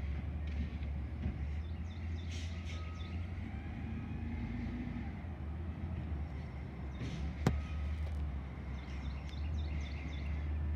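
Distant front-loader garbage truck fitted with a Curotto-Can arm, its diesel engine running as a steady low rumble, with one sharp click about seven and a half seconds in.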